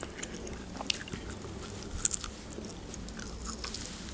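Close-miked eating of grilled chicken: bites and chewing, with scattered short wet clicks and the sharpest cluster about two seconds in.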